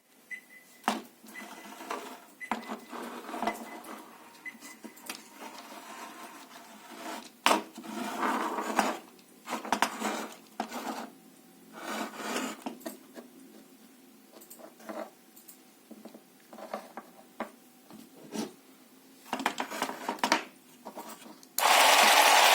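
Plastic parts of a 3D-printed model V8 engine clicking, knocking and rubbing as it is handled. Near the end the electric-driven model starts suddenly and runs with a loud, steady mechanical rattle.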